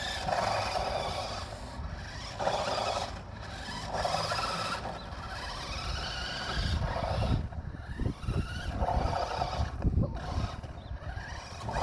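Radio-controlled toy car driving in short spurts, its motor and tyres scraping and skidding on the ground, over a low rumble.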